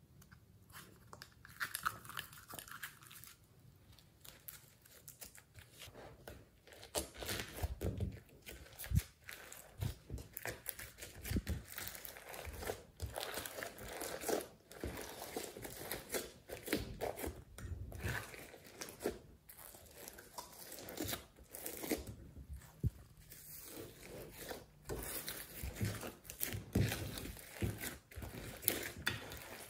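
Glossy slime being pressed, folded and pulled apart by hand, mixed with clay and foam beads, giving irregular sticky crackles, pops and tearing sounds.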